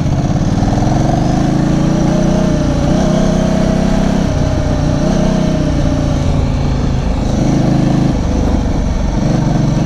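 Off-road motorcycle engine running at a steady cruise while riding along a dirt track, its pitch holding fairly even with small changes in throttle.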